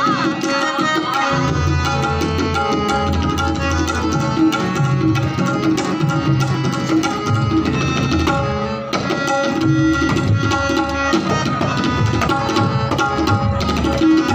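Tabla solo in teentaal: rapid strokes on the dayan with low bass tones from the bayan, over a harmonium holding a steady melody underneath.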